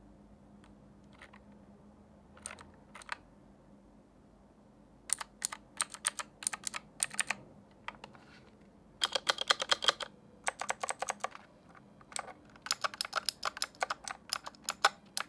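Typing on an AJAZZ K870T mechanical keyboard with clicky blue switches: a few single keystrokes, then runs of quick keystrokes from about five seconds in, with the fastest flurry in the middle.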